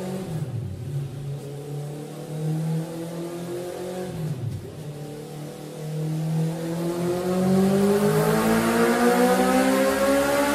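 Honda CB650R inline-four engine through a Mivv Delta Race slip-on exhaust. It runs at low revs for the first few seconds, dips briefly, then revs up, its pitch and loudness climbing steadily through the second half.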